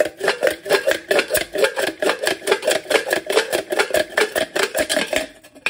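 Sawn halves of a stainless steel vacuum flask clicking and clinking rapidly as they are worked in the hands, about six sharp metallic clicks a second with a ringing tone, dying away near the end.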